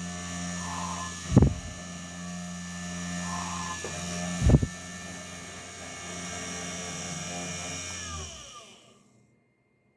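3018 desktop CNC router running its spindle with a steady high whine, with two heavy thumps about three seconds apart. Near the end the spindle winds down with a falling whine and stops.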